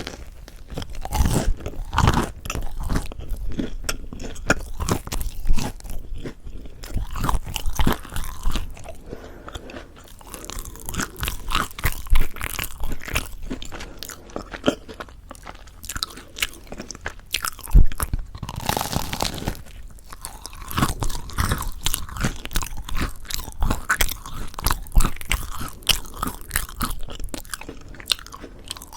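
Close-miked eating of crispy mocha bread: crunching bites and chewing go on throughout, with a few louder crunches and the loudest a little past halfway.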